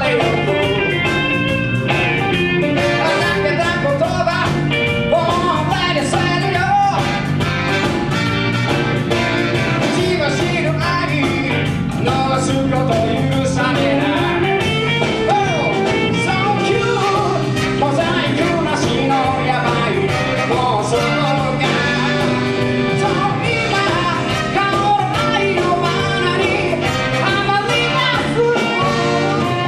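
Live band playing blues-flavoured rock and roll, with guitar and a steady drum beat.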